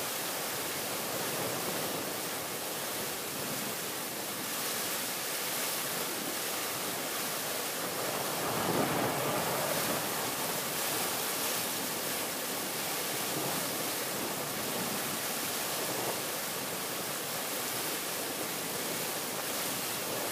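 Thunderstorm downpour: heavy rain pouring steadily, swelling briefly about eight seconds in.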